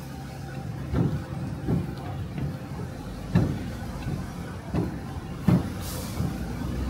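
A series of dull knocks from a street-food vendor's utensils, irregularly spaced about a second or more apart, over a steady low hum.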